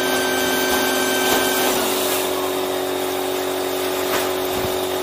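Electric air pump running steadily while inflating an inflatable boat. Its tone changes slightly about two seconds in.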